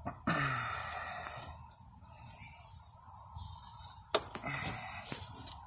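Quiet scraping and handling noises from a tire-plug kit's reamer tool being worked into the nail hole in the tire tread, with a sharp click about four seconds in.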